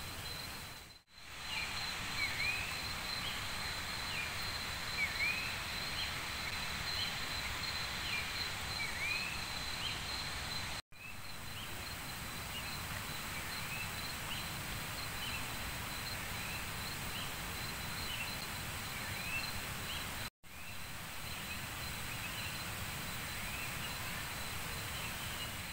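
Pre-dawn forest ambience: a steady high insect drone and short chirping animal calls repeating over a steady hiss. The sound cuts out briefly three times.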